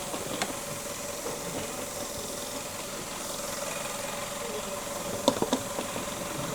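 Skoda petrol engine idling steadily, with a few sharp clicks: one about half a second in and three in quick succession about five seconds in.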